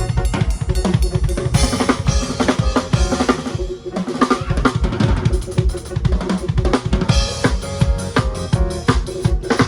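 Drum kit playing a busy, steady beat with prominent kick and snare over other music, played loud through a stadium sound system during a sound check. The beat thins out briefly about four seconds in.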